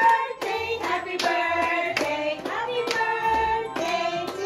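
People singing, with hands clapping along in a steady beat of about three claps a second.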